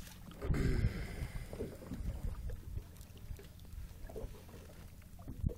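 Wind rumbling on the microphone over water moving against the side of a small boat, with a brief louder sound about half a second in and a short knock near the end.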